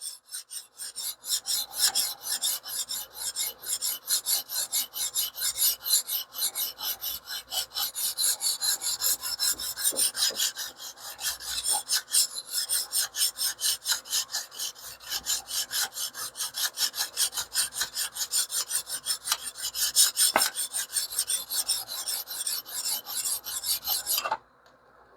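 150-grit stone on a TS Prof Kadet Pro guided sharpener stroked back and forth along a small 1084 carbon-steel cleaver's edge, in a quick, even rhythm of gritty scraping strokes that stops shortly before the end. The stone is grinding a fresh 17-degree bevel to raise a burr.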